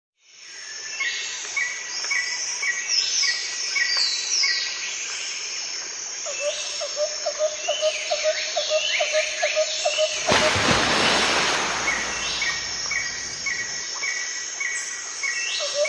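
Several birds singing and calling, with a repeated chirping and a fast string of lower notes for a few seconds in the middle. A rush of noise about ten seconds in.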